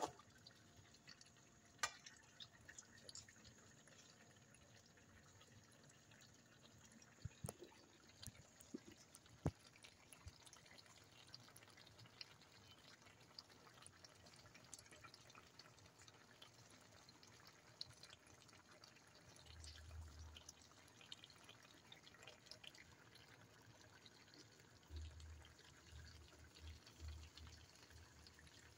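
Faint bubbling and popping of pork-hock humba simmering in its thick sauce in a metal pan, with scattered small clicks and pops and a few light clinks of a metal ladle. A few dull low bumps come in the second half.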